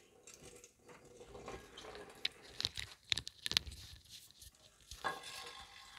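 Rustling and crackling handling noise, with a cluster of sharp clicks and crackles between about two and three and a half seconds in.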